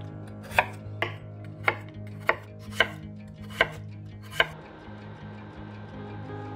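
Chef's knife slicing raw peeled potatoes on a wooden cutting board: seven sharp knife strikes on the board, a little under one a second, ending about four and a half seconds in.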